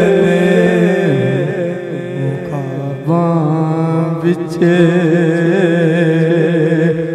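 A man's voice singing a Punjabi naat, drawing out long ornamented notes over a steady drone, with a brief breath-pause about three seconds in.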